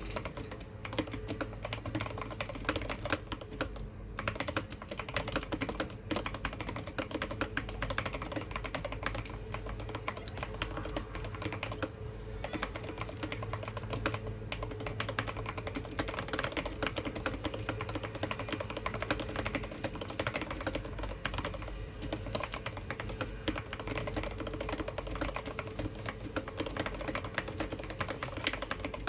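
Modded Keychron K8 tenkeyless mechanical keyboard being typed on quickly: a continuous, dense stream of key clicks and keystrokes.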